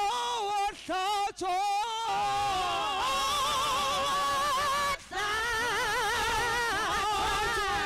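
Church congregation singing a hymn, one voice standing out with long, wavering held notes. The singing breaks off briefly about five seconds in, then carries on.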